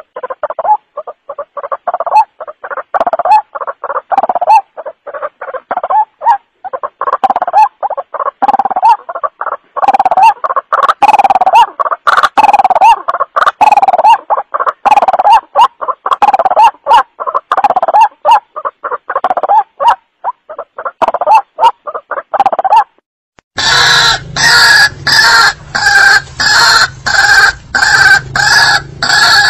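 White-breasted waterhen (ruak-ruak) lure call, a fast run of loud, harsh repeated call notes. About 23 s in it breaks off, and a different stretch of evenly spaced calls begins, about two a second over a low steady hum.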